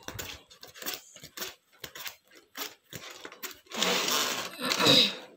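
Stiff plastic shoebox panels flicked one by one through a stack as they are counted: a quick run of light clicks and taps, then a louder rustling scrape of the sheets sliding against each other near the end.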